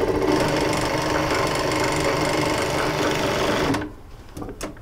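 Vintage Union Special industrial sewing machine running steadily at speed, stitching denim belt-loop strip, then stopping abruptly nearly four seconds in.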